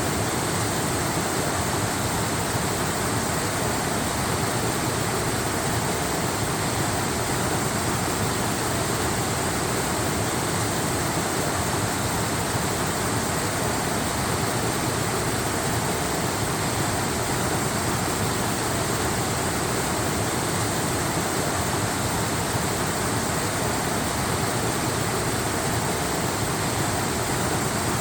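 Waterfall: the steady, unbroken rush of falling water, even in level throughout.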